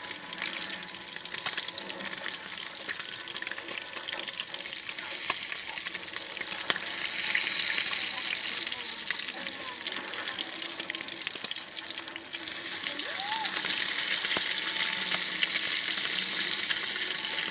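Tilapia frying in hot oil: a steady sizzle full of crackles and spits. It grows louder about seven seconds in, eases briefly, then swells again past the middle.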